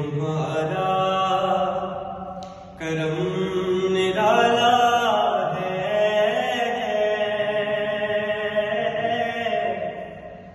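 A man's solo voice chanting a manqabat, an Urdu devotional poem, in long held notes with gliding ornaments. The voice breaks off briefly about two and a half seconds in and again near the end.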